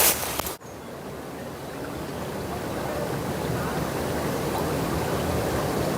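Running water of a stream, cut off sharply about half a second in and replaced by a quieter, low noise that slowly grows louder.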